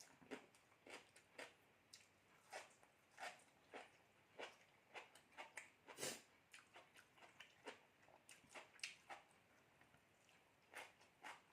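Faint crunching of someone chewing crisp food, a short crackle about twice a second with a brief pause near the end.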